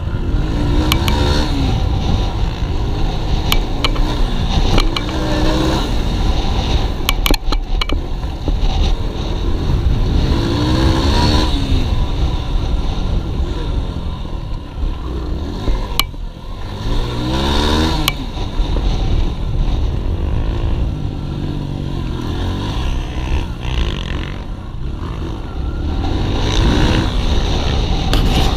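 Yamaha dirt bike engine being ridden hard, revving up and dropping back again and again as the rider accelerates and shifts over the track. Heavy wind rumble on the microphone runs underneath, and there are a few sharp clatters as the bike hits bumps.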